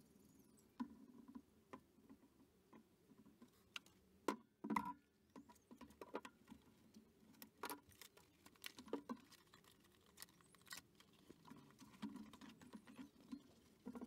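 Faint handling noises at a workbench as a folded mountain-bike tyre is unwrapped from its cardboard packaging: scattered clicks, taps and rustles, with a couple of louder knocks about four and a half seconds in.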